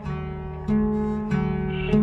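Instrumental music from a hip-hop song, without vocals. Sustained chords over a low bass, with the chord changing twice.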